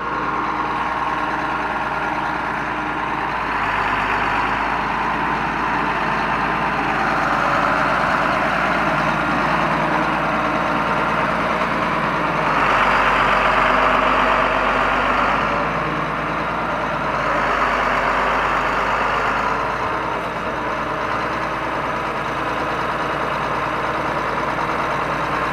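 1989 John Deere 4955 tractor's six-cylinder turbo diesel engine idling steadily, growing a little louder and softer a few times.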